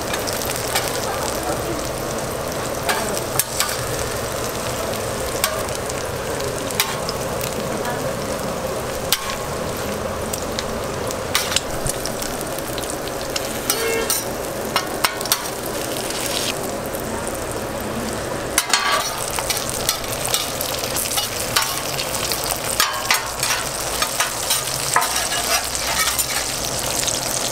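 Fried eggs and meat patties sizzling and crackling on a flat-top steel griddle. A metal spatula scrapes and clicks against the griddle plate now and then.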